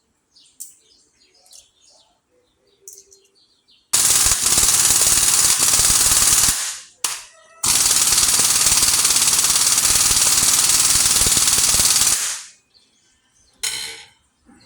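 Impact wrench hammering in two long bursts, the second longer, with faint clinks of tools and parts around them.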